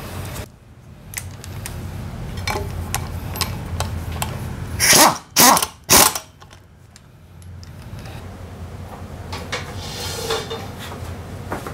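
Light tool clinks and handling noise, then three short, loud bursts of an impact wrench about five to six seconds in, driving home the bolts of a new brake disc on a scooter's front wheel. Lighter workshop clatter follows.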